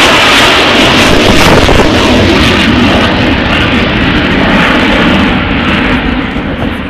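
Twin-engine fighter jet flying low past, its jet engines very loud. The noise dies away near the end as the jet climbs off into the distance.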